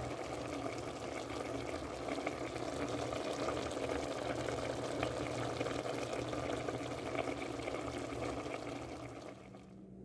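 Paksiw broth of milkfish and eggplant bubbling at a steady boil in a covered pot, fading out near the end.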